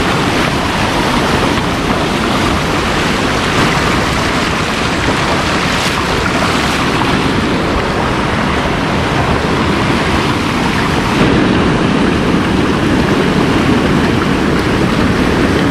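A small stream waterfall running full with rainwater: a loud, steady rush of falling water.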